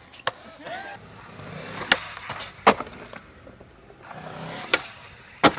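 Skateboard wheels rolling on concrete, broken by sharp clacks of the board popping and landing, several in a row.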